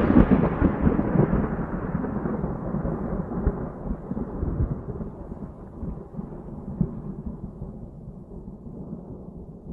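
A deep rumbling boom dying slowly away, its higher crackle fading first until only a low rumble is left.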